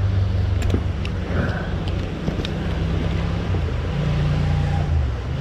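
Fast, shallow mountain stream rushing over stones, under a low steady drone that steps down in pitch a few times.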